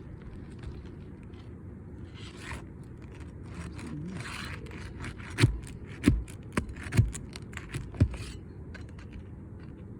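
A tool scraping and working under an asphalt roof shingle to loosen it and its nails, then a run of sharp knocks between about five and eight seconds in.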